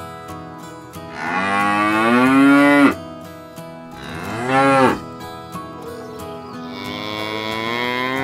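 Cattle mooing: three calls, a long loud low moo, a short moo that rises and falls, then another long moo near the end.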